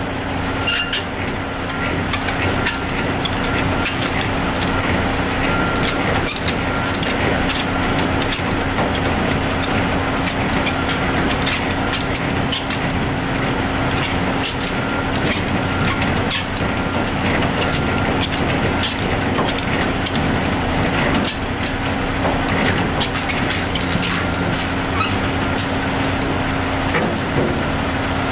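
Semi-truck diesel engine idling with a steady hum, under many sharp metallic clicks and clanks.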